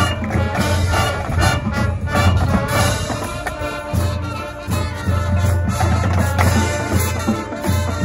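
High school marching band playing its field show: brass with drums and front-ensemble percussion.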